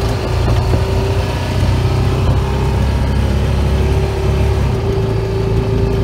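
Honda side-by-side utility vehicle's engine running steadily while driving, heard from the driver's seat, with a steady droning note over the low engine rumble.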